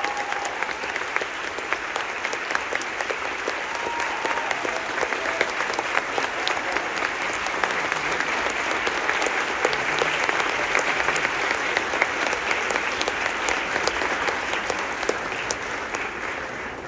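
Large audience applauding, a dense steady clatter of many hands clapping that thins and fades near the end.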